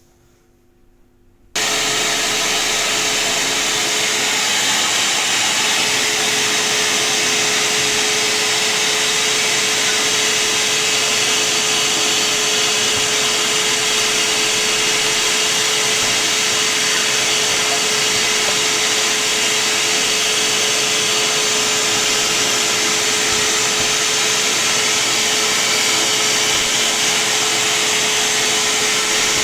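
Vacuum cleaner with a newly fitted motor starting abruptly about a second and a half in, then running steadily at full speed: a loud, even rush of air with one steady whine through it.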